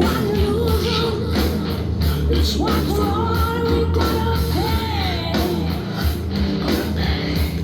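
Heavy rock song with a sung vocal over a steady beat, played back through a Tribit StormBox Blast 2 portable Bluetooth speaker.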